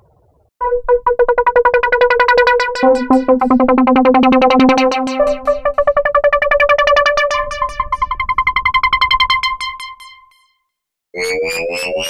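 Synthesizer sound effect from GarageBand's Alchemy synth: a steady pitched tone pulsing rapidly and evenly, with a lower tone added for a few seconds in the middle, fading out near the end. After a short gap a second effect begins, a pulsing tone that glides upward like a siren.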